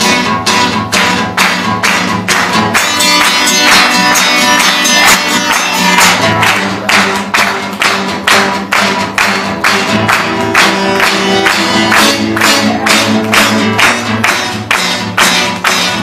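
Live gospel music: acoustic guitar chords with a congregation clapping along on a steady beat, about two to three claps a second.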